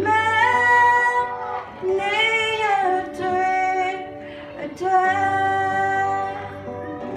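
Woman singing a slow song into a microphone, holding long notes in separate phrases, accompanied by acoustic guitar.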